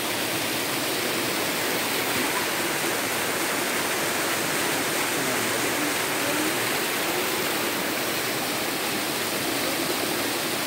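Waterfall pouring over rocks into a swimming pool: a steady, even rush of falling water.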